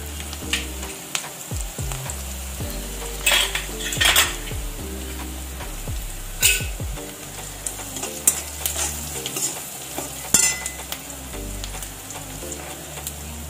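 Chopped onions with turmeric sizzling as they fry in oil in a metal kadhai. A slotted metal spoon stirs them, its scrapes and clinks against the pan heard several times.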